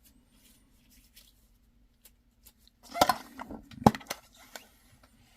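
Small metal Pokémon mini tin being handled and opened: faint rustling, then a cluster of sharp clicks and knocks about three seconds in and one loud click about a second later.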